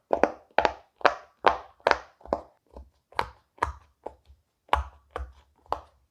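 Silicone pop-it fidget toy bubbles being pressed down one after another, each giving a sharp pop, about two to three a second.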